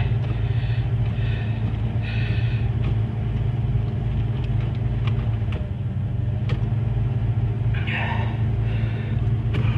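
1998 Chevy Malibu engine idling steadily, heard from inside the cabin, with a few faint clicks as the automatic gear shifter is run through the gears.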